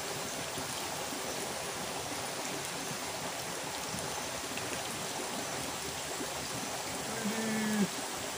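Steady rushing of a shallow river flowing, an even wash of water noise. A faint short voice sounds near the end.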